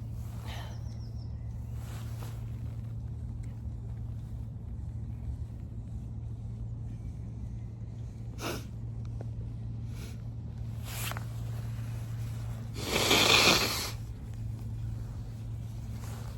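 A person forcing air hard through the nose, a nose blow or sneeze attempt: a loud burst lasting about a second, late on, after a few shorter, fainter nasal puffs. A steady low hum runs underneath.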